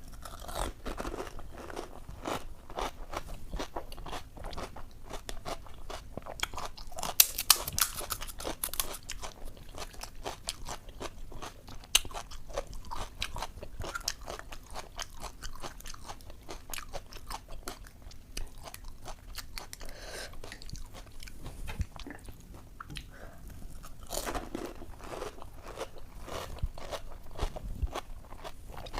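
Crisp puchka (pani puri) shells filled with ghugni being bitten and chewed close to the microphone: continuous crunching and chewing, with the loudest crunches about seven to nine seconds in.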